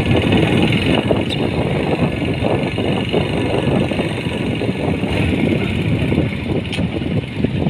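Motorcycle engine running steadily as the bike rides along a rough dirt track.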